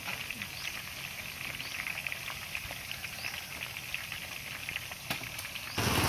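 Sweet potato slices deep-frying in a wok of hot oil: a steady crackling sizzle full of small pops. Near the end it cuts abruptly to a louder low hum of a passing motorbike.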